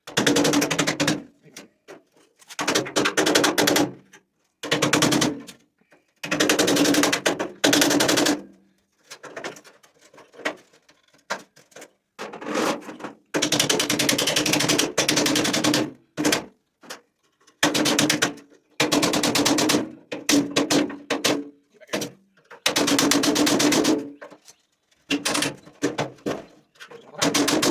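Electric drill running under load in repeated bursts of one to four seconds with short pauses between, boring the heads off the screws in a car door's steel upper hinge.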